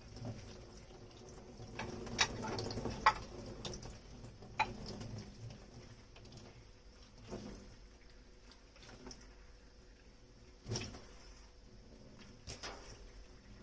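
Dishes being washed by hand at a kitchen sink: scattered clinks and knocks of crockery, with a spell of splashing water in the first few seconds.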